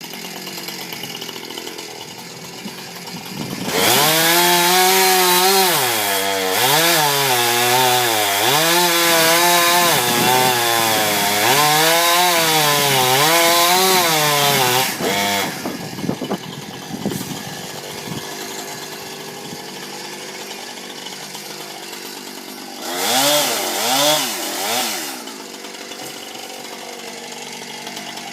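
Chainsaw ticking over, then run at high revs for about twelve seconds from some four seconds in, its pitch rising and falling again and again. It drops back to idle, with another short burst of revs near the end.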